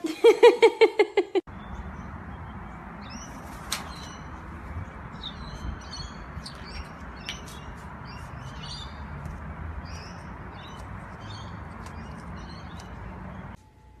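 White cockatoo calling in a quick run of pitched pulses, about six a second, that stops about a second and a half in. Then steady background noise with faint scattered bird chirps and a couple of sharp clicks.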